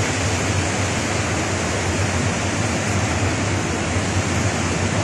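Steady rushing noise with a constant low hum underneath, from a small boat moving through a sea cave: its motor running and water washing around the hull.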